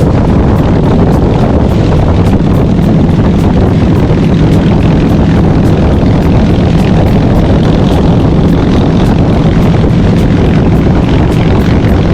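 Motorcycle running steadily at road speed: a constant engine drone mixed with rushing wind noise.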